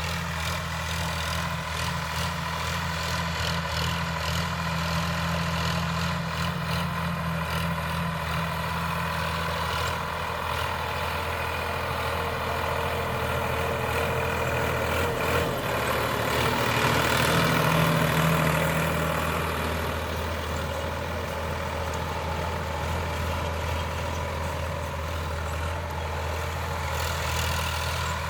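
Sonalika DI 745 III tractor's diesel engine running steadily while pulling a plough through dry ground, swelling louder for a couple of seconds a little past halfway.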